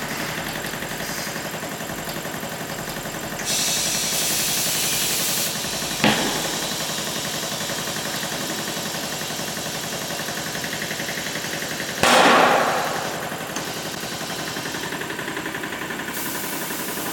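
A machine running steadily, with a stretch of high hissing about three and a half seconds in, a sharp click around six seconds, and a louder hissing burst about twelve seconds in.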